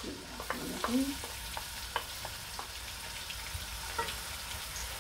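Chopped onion sizzling in hot cooking oil in a large metal pan, just added to start sautéing, with a wooden spoon stirring and lightly ticking against the pan.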